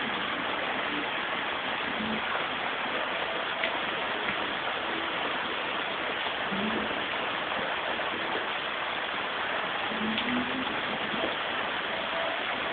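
Heavy rain falling in a steady downpour, a continuous even hiss.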